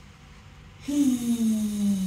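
A woman's long, breathy voiced exhalation on the sound "heee", the Qigong Six Healing Sounds tone for the triple warmer. It starts about a second in and slides slowly down in pitch.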